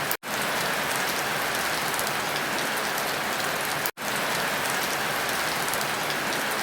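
Steady rain falling on surfaces, a dense hiss with individual drops ticking. The sound cuts out for an instant twice, once just after the start and once about four seconds in, then resumes at the same level.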